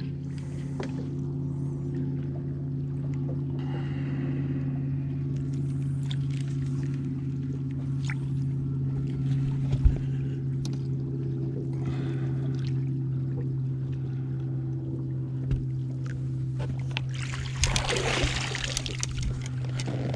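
A boat's motor humming steadily, with water splashing near the end as a hooked smallmouth bass is brought to the boat.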